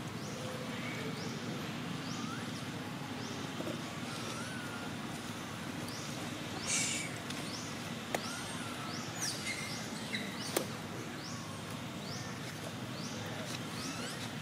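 Outdoor ambience with a short, high rising chirp repeated a little more than once a second, a few faint whistling glides, a brief hiss about seven seconds in and a couple of sharp clicks.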